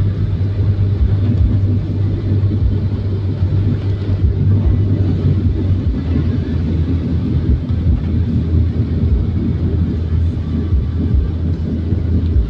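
A car driving at a steady speed: a constant low rumble of engine and road noise with a strong steady hum.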